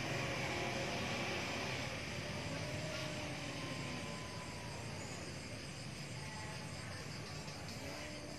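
Night ambience: a steady low hum like distant engine noise, with insects trilling in a high, even chirr. A few faint long gliding tones rise and fall over it.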